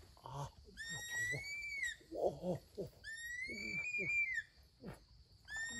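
A high whistled bird call heard twice, each about a second long, rising and then arching down at the end, with short low voice-like sounds between the calls.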